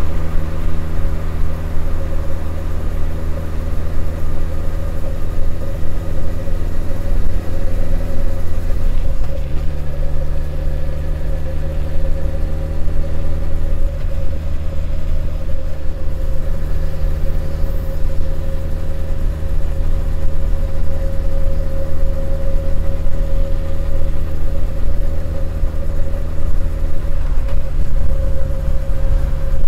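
Honda CB1100EX's air-cooled inline-four engine running under way at a steady road speed. The engine note changes about nine seconds in and again near the end.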